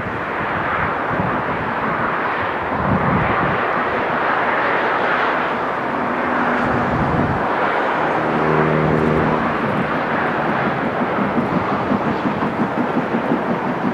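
SR King Arthur class No. 777 Sir Lamiel, a two-cylinder 4-6-0 steam locomotive, working a passenger train. Its exhaust beats come through at about three a second in the last few seconds, over a steady rushing noise. A brief steady humming tone sounds about eight seconds in.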